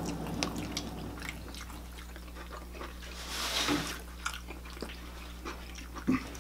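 Close-up eating sounds: small wet mouth clicks and light taps of a fork on a plate, with a brief rustle about halfway through, over a low steady hum.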